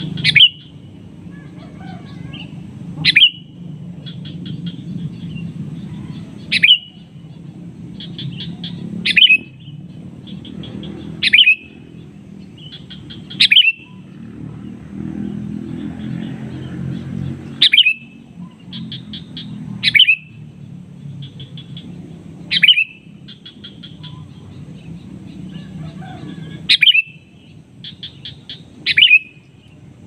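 Male sooty-headed bulbul (kutilang) calling: a quick run of short notes followed by a loud sharp note, repeated every two to three seconds. It is a summoning call to rival birds. A low steady rumble runs underneath.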